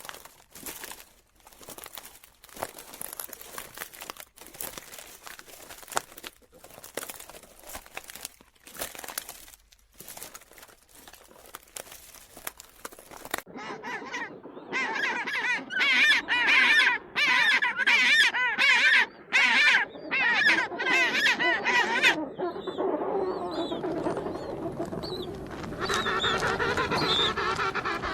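A run of clicks and crackling for the first half, then loud, repeated honking bird calls from about halfway on, quieter near the end.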